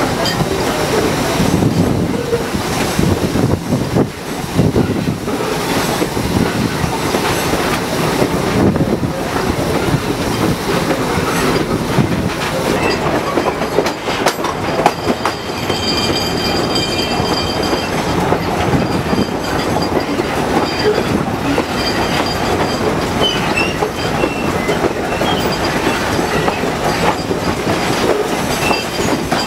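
Strasburg Rail Road steam locomotive No. 90 and its passenger cars running along the track, heard from on board: a steady clatter of wheels over the rails with wind and rumble. A faint high squeal of the wheels comes in around the middle.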